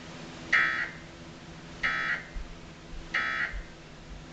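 Emergency Alert System end-of-message data tones from a television: three short buzzy bursts about 1.3 seconds apart, marking the close of the nationwide test alert.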